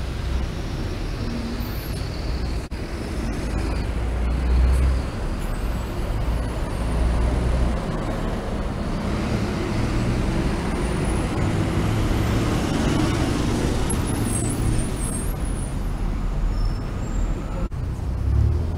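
City buses and cars passing on a wet street: low engine rumble and steady tyre and traffic noise, swelling as the vehicles go by, loudest about four to five seconds in.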